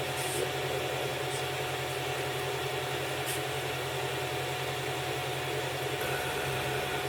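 3D printer running a print: its stepper motors and fans hum steadily, with a fine pulsing in the low hum and a steady whine above it, and a few faint ticks.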